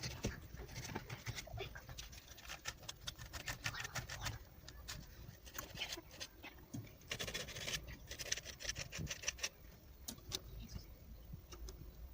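A steering wheel's horn contact parts being cleaned and handled: many small clicks and scrapes, with a run of rubbing strokes about seven to nine seconds in.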